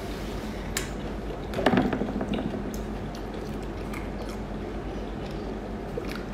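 Raw lobster shell and meat being pulled apart by hand and bitten: wet squishing and scattered small clicks, with one louder crackle a bit under two seconds in, over a steady low hum.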